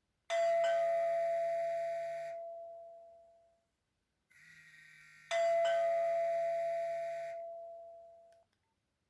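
A Nokia 1600 mobile phone playing a chiming ringtone. The chime sounds twice, about five seconds apart, and each strike rings out over about three seconds. A quieter lead-in note comes about a second before the second strike.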